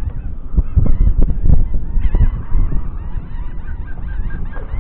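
Wind buffeting the microphone in a loud, uneven low rumble with gusty thumps. From about two seconds in, a quick string of short, repeated high calls from birds runs through the background.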